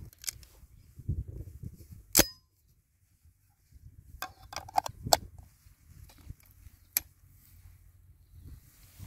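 Sharp metallic clicks and clacks of a Derya MK-12 semi-automatic 12-gauge shotgun being loaded with slug shells and its action handled. One loud click rings briefly about two seconds in, a cluster of clicks follows around four to five seconds, and a single click comes near seven seconds.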